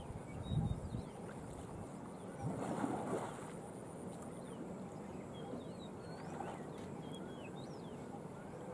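Water sloshing and splashing around Sri Lankan elephants as they shift while bathing. A fuller splash comes about three seconds in, over a steady open-air background with faint scattered bird chirps.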